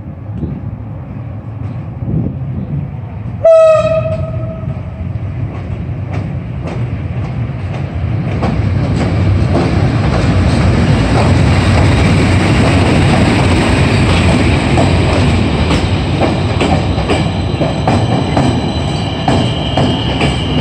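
EP07 electric locomotive gives one short horn blast about three seconds in. It then passes close by hauling a passenger train, with a loud rumble building up and the clickety-clack of the coach wheels over the rail joints.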